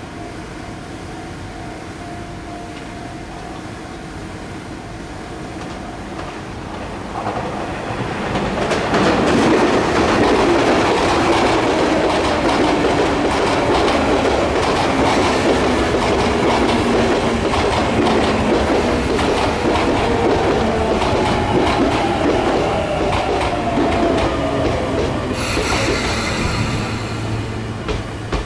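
Sotetsu Line electric train running through the station, with wheels clattering over the rails. It grows loud about eight seconds in, and near the end a motor whine falls slowly in pitch before a brief high-pitched hiss.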